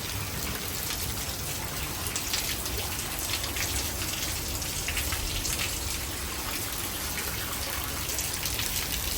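Heavy rain falling steadily in a thunderstorm, with many sharp drops ticking close by and a low rumble underneath.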